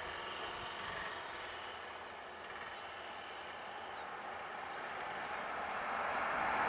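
Steady low hum of a vehicle engine idling, with small birds chirping faintly and high in the first few seconds. The overall sound grows louder toward the end.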